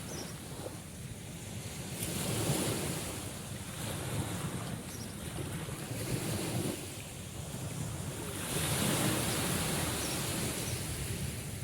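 Sea waves washing on a shore, a steady rush that swells and fades, surging louder twice.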